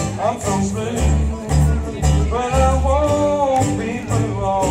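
A country-blues string band playing an instrumental passage: guitar over steady bass notes, with a lead melody line that slides between notes.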